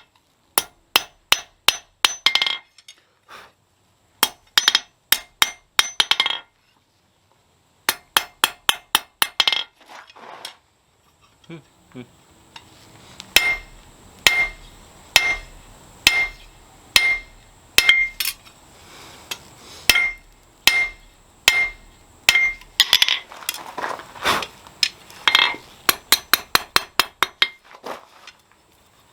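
Hand hammer striking hot steel on an anvil: quick runs of rapid blows with short pauses, then after a brief lull a steadier series of blows about one to two a second, each with a ringing note. A steady hiss with a high whine runs under the later blows.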